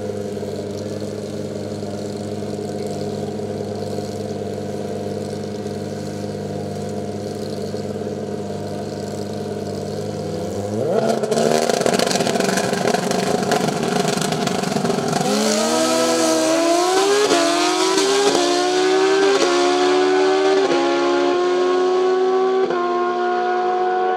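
Two drag-racing motorcycles idling steadily at the starting line, then revved up hard about eleven seconds in. A few seconds later they launch and accelerate down the strip, the engine note climbing and dropping back in steps through a quick series of upshifts.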